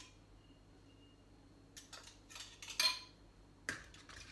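After a quiet first second and a half, a spoon clinks against bowls about five times, the loudest near three seconds in, as beaten egg is spooned into a glass mixing bowl.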